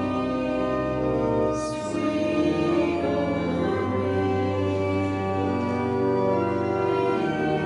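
Church organ playing a hymn tune in held chords, with little or no singing heard.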